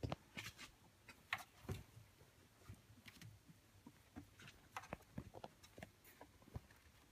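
Faint, scattered taps and scratches of kittens pawing and playing at the bars of a metal wire pen, a few sharper clicks among them.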